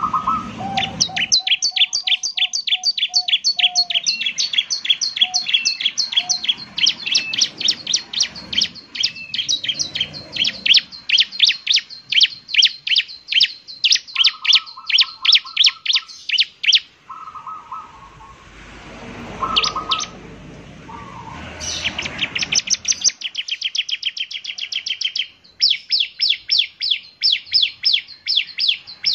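Bar-winged prinia (ciblek) singing: long runs of quick, evenly repeated high chirps, about four to five a second, broken by brief pauses before the chirping resumes.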